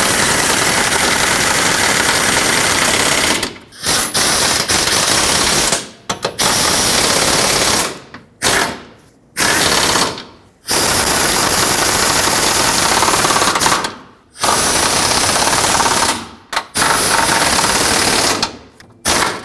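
Pneumatic wrench running in a string of loud bursts, each one to a few seconds long with short pauses between, driving the radiator support's mounting bolts in tight.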